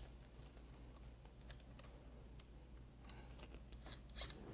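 Faint, scattered small clicks and taps of parts being handled as the plastic horn is refitted to the generator's throttle actuator, with a sharper click right at the start and a few more about four seconds in.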